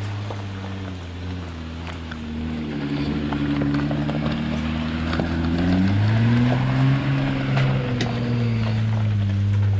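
Jeep Wrangler Rubicon engine pulling slowly past at close range. It grows louder, rises in pitch about six seconds in and eases off again about two seconds later. Small scattered clicks of gravel crunch under the tyres.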